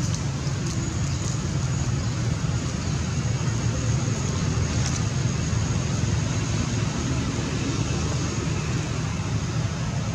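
Steady outdoor background noise: a continuous low rumble with a thin, steady high-pitched hiss above it and no distinct events.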